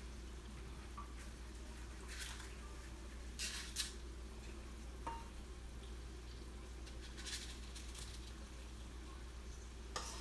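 Soft kitchen work sounds: a few short scrapes and clicks of a spoon and bowl as cupcake batter is spooned into cups, over a low steady hum.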